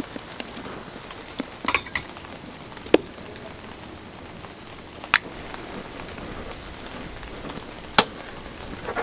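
Dalgona making: a wooden stick stirs and scrapes melted sugar in a small metal ladle, and the candy is poured out onto a steel plate. A handful of sharp clinks and knocks of the ladle and tools against metal are scattered through, over a steady background hiss.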